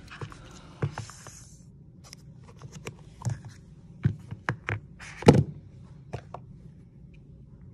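Handling sounds of a new iPhone 13 Pro in its paper screen wrap: scattered light taps and clicks as it is turned in the hand, a brief rustle about a second in, and a louder thud about five seconds in as it is laid down on a silicone work mat.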